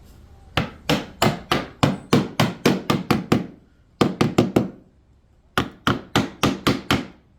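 Hammer striking wood in three quick runs of blows, about three to four a second, with short pauses between: a subfloor patch piece being knocked or nailed into place.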